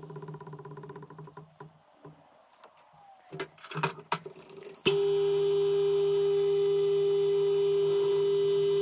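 A machine tool's electric motor hums with a steady pitch, fades out about a second and a half in, and is followed by a few sharp metallic knocks and clicks. About five seconds in, a louder, steady motor hum starts abruptly and holds.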